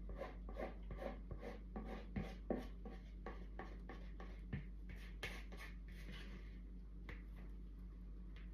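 Spatula scraping the last of the cake batter out of a mixing bowl in quick repeated strokes, about two or three a second, thinning out to a few single scrapes after about five seconds.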